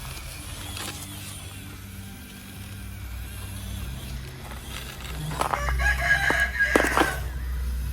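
A rooster crows once, starting about five seconds in and held for nearly two seconds. A steady low hum runs underneath.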